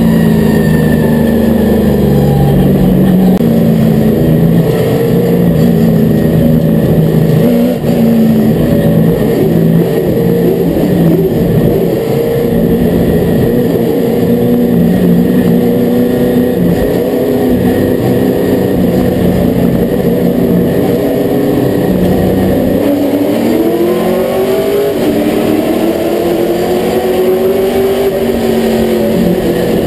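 Limited Late Model race car's V8 engine heard from inside the cockpit, running hard at racing speed with a steady high note. A little over twenty seconds in, the note drops as the throttle comes off, then climbs steadily as the car accelerates again.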